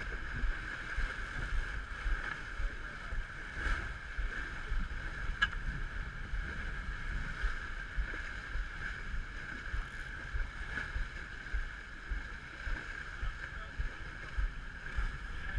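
Steady rush of water streaming past the hull of an Ultra 30 racing sailboat under sail, with wind buffeting the microphone in gusty low rumbles.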